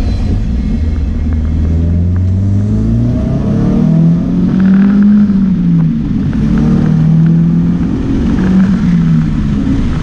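Turbocharged KA24DET four-cylinder engine of a Nissan 240SX (S14) accelerating hard, heard from inside the cabin. The engine note climbs from about two seconds in, then falls and climbs again a couple of times as it is shifted through the gears.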